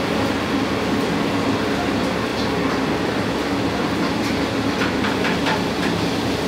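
Steady mechanical rumble of commercial kitchen machinery, with a few light clicks about two thirds of the way through.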